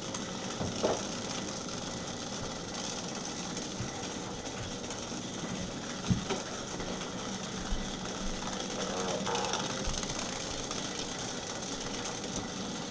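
Several Hexbug Nano vibrating toy bugs buzzing steadily and rattling as they skitter over a concrete floor, with a few sharp clicks as they knock into things.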